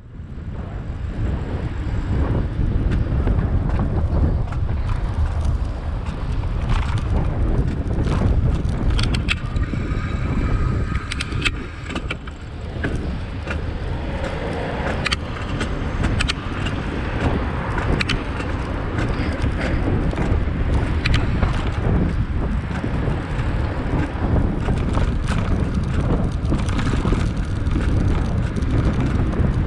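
Wind rumbling on a bicycle-mounted camera's microphone while riding along a road, with road and traffic noise and occasional sharp rattles, fading in at the start.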